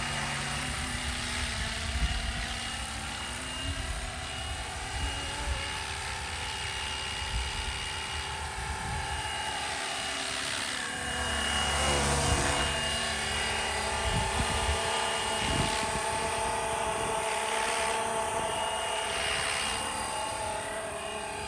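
FlyWing Bell 206 scale RC helicopter in flight: its electric motor whine and rotor buzz run steadily, drifting up and down in pitch as it manoeuvres, a little louder about halfway through.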